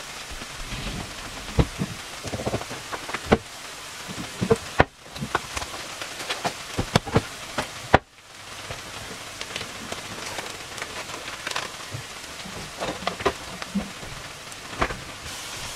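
Chopped onions sizzling steadily in a frying pan, with scattered clicks and knocks of things being set down nearby.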